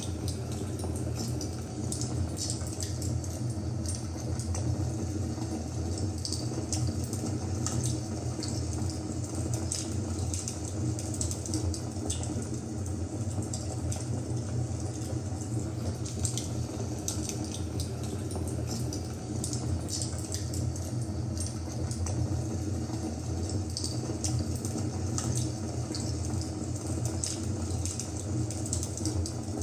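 Fire crackling: a steady low rumble and hiss with scattered sharp crackles and pops.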